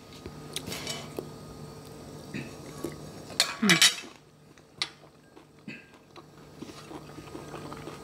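Fork and spoon clinking and scraping on a ceramic plate while eating, in scattered light clicks. A brief louder noise about three and a half seconds in.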